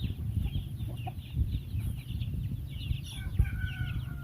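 Young chicks peeping in many short chirps, with a longer, held chicken call about three seconds in. A steady low rumble runs underneath.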